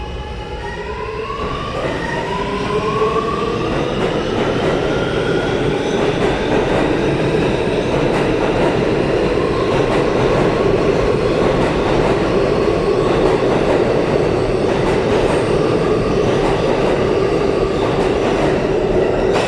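R211 New York City subway train pulling out of the station. Its traction motors whine in several tones that rise together over the first few seconds as it accelerates, then the running noise of the train grows louder and holds steady.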